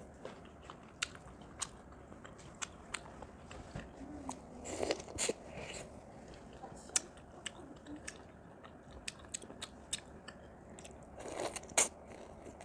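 Close-up eating sounds: biting and chewing corn on the cob, with scattered small clicks and louder bites about five seconds in and again near the end.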